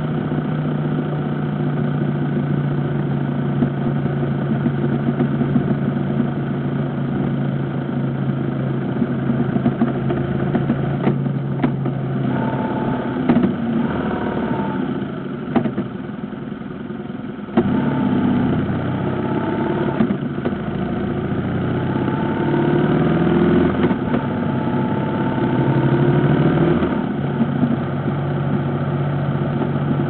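Motorcycle engine heard from the rider's seat, running at a steady cruise, then easing off and dropping quieter a little past halfway. The throttle opens sharply and the engine note rises as the bike pulls away, settling back to a steady cruise near the end, over a haze of wind and road noise.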